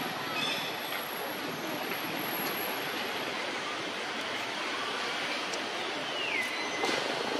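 Steady rushing outdoor background noise, with a few faint high chirps near the start and one thin high call that falls in pitch about six seconds in.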